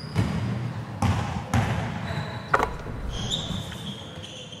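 A basketball bouncing four times, dribbled at an uneven pace, with the last bounce about two and a half seconds in. Thin high tones sound through the second half.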